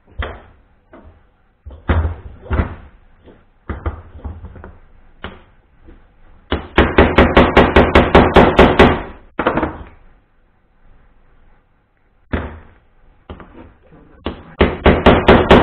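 Hammer striking a drift to drive a new wheel bearing into a scooter wheel hub. First come scattered single knocks, then two runs of quick taps, one about six seconds in and one near the end. The bearing had tightened up out of square and is being tapped around until it runs in square.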